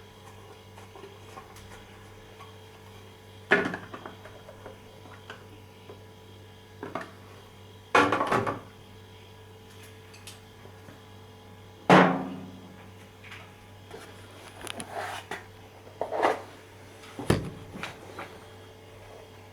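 Hardware being handled during an alarm-panel installation: about half a dozen sharp knocks and clacks at irregular intervals a few seconds apart, over a faint steady hum. The knock about twelve seconds in rings on briefly.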